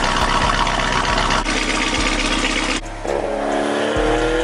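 Lamborghini Urus's twin-turbo V8 idling through a straight-piped valvetronic exhaust with catless downpipes, its tone changing about a second and a half in as the exhaust valves are switched. About three seconds in it gives way to the exhaust heard from inside the cabin with the windows down, the engine accelerating with a steadily rising pitch.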